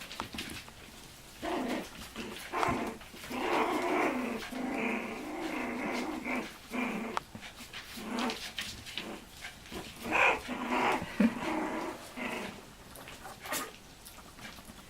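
Cairn terrier puppies about three and a half weeks old making small, wavering growls and whines, off and on from about a second and a half in until near the end.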